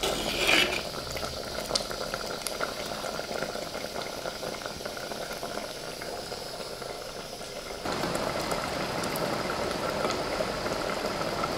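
Thick prawn masala bubbling and spluttering as it reduces in a clay pot over a gas flame, with small scattered pops; it gets a little louder about eight seconds in.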